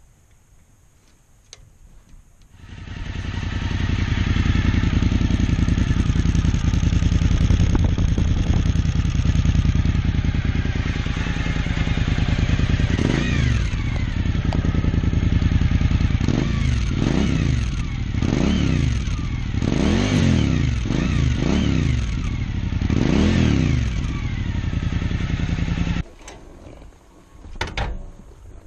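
Suzuki V-Strom 1000's 90° V-twin motorcycle engine starts up about two seconds in and idles. It is then blipped repeatedly, about eight quick revs that rise and fall, before it cuts off abruptly near the end.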